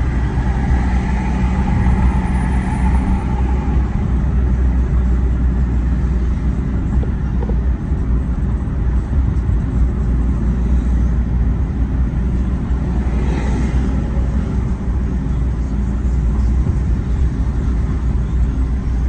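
Steady low rumble of engine and tyre road noise inside a car driving through city traffic.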